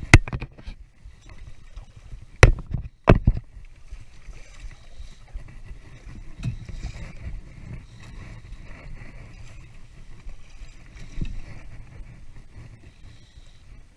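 Sharp knocks of fishing gear against a plastic fishing kayak: one right at the start, two loud ones about two and a half and three seconds in, and a smaller one near the end. Under them runs steady low wind and water noise.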